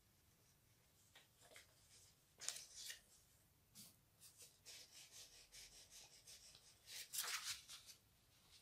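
Faint rustling and scraping of a sheet of paper slid and pulled between the nozzle and the bed of a Creality Ender 3 Pro 3D printer: the paper test for levelling the bed. A few short scrapes, the clearest about two and a half seconds and seven seconds in.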